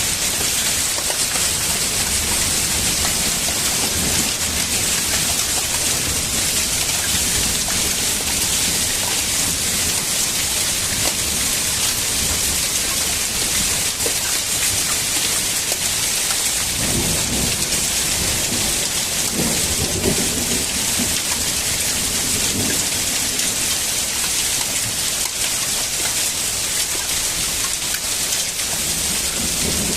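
A heavy downpour of rain and hail pelting steadily onto surfaces. Low rumbles swell for several seconds in the middle.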